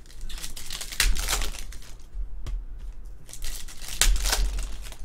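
Foil trading-card pack crinkling and tearing as it is ripped open by hand, in uneven bursts, loudest about a second in and again about four seconds in.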